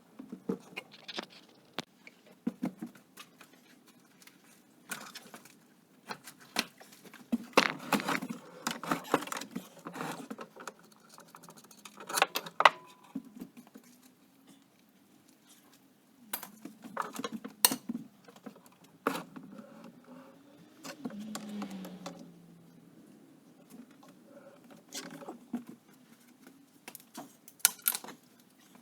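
Irregular metallic clicks, clinks and rattles of hand tools and loose parts as an ATV is taken apart, with several louder clanks scattered through.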